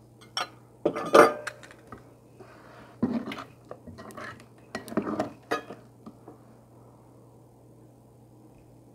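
Enamelware funnel clinking onto a glass mason jar about a second in, the loudest sound, then a ladle knocking and scraping in a ceramic mixing bowl as jam is scooped out. After about six seconds only a faint steady low hum remains.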